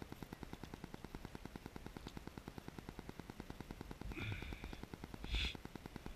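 Rapid, even ticking at about ten a second, with two short splashes of water against a camera held at the water's surface, about four and five seconds in, the second louder.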